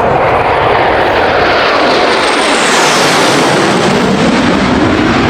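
Jet aircraft flying past: a loud, steady rushing engine noise with a sweep in pitch about halfway through.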